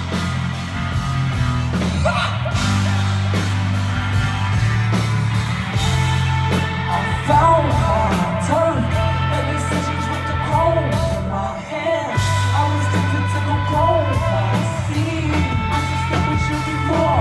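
Loud live hip-hop concert music over a PA system: deep bass notes held for a few seconds at a time, with singing over them.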